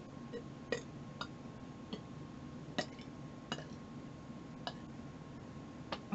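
Faint drinking sounds from sipping carbonated soda water: soft, irregular clicks, roughly one a second.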